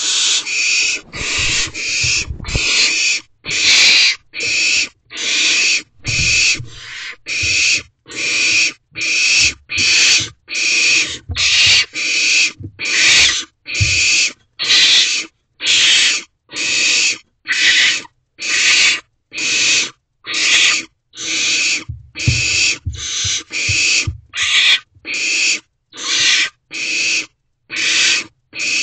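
Barn owlets calling in a steady train of rasping hisses, about one and a half a second, the wheezing "snoring" of young barn owls begging for food. A few low thumps come in between, near the start and now and then later.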